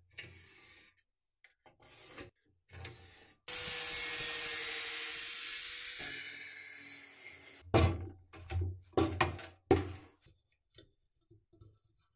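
Angle grinder cutting sheet steel: about four seconds of a steady hiss of the cutting disc with a steady whine under it, starting about three and a half seconds in. Before it come faint scraping sounds of the plate being marked out, and after it several loud knocks.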